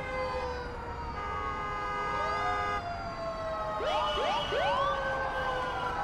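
City ambience sound-effect mix: emergency sirens wailing, slowly falling and rising in pitch, with three quick rising whoops about four seconds in. A car horn is held for about two seconds, starting a second in, over a low traffic rumble.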